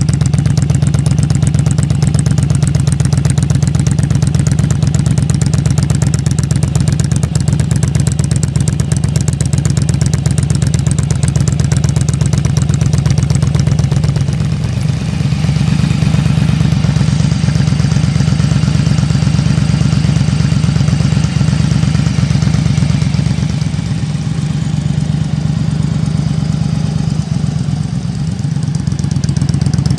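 Yamaha Drag Star 1100's air-cooled V-twin engine idling through its exhausts, a steady low pulsing that dips slightly in level about halfway through and again near the end.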